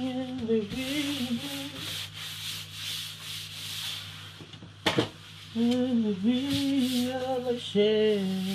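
A cloth rubbing across a kitchen worktop in wiping strokes, while a woman hums a tune in held notes at the start and again from about five and a half seconds in. A single sharp click about five seconds in.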